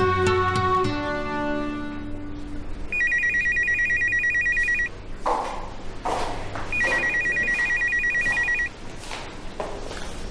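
A telephone ringing with a rapid electronic trill: two rings of about two seconds each, starting about three seconds in, after a few notes of background music fade out. A few soft knocks come between the rings.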